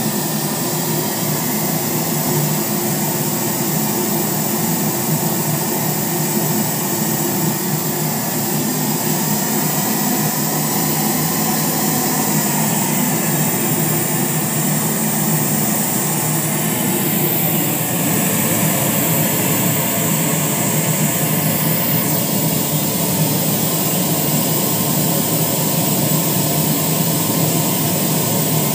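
Steady, loud rushing noise used as a test signal, played through a newly built speaker cabinet for a frequency-response check.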